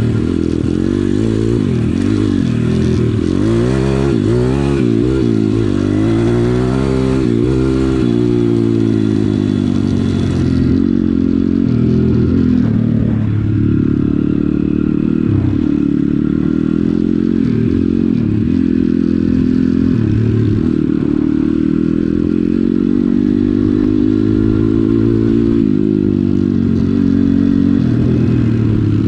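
Kayo pit bike's single-cylinder four-stroke engine under way. It revs up and drops back several times in quick succession in the first eight seconds or so as it accelerates through the gears, then runs at a steadier speed with slow rises and falls.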